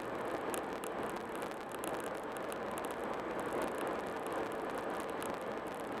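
A car driving at highway speed: steady tyre and road noise.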